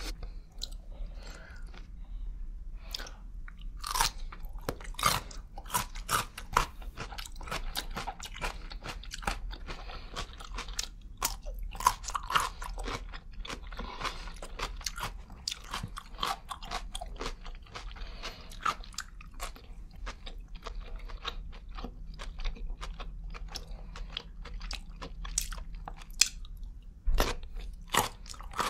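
Close-miked eating: crunchy bites and wet chewing of pickles and other board food, with many short, sharp mouth clicks and crunches.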